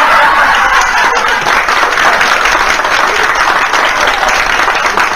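Studio audience applauding and laughing after a joke's punchline: dense, continuous clapping with laughter mixed in.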